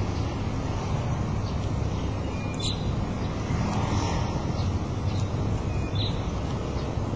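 Steady low background rumble with a few short, high bird chirps, about two and a half seconds in and again near six seconds.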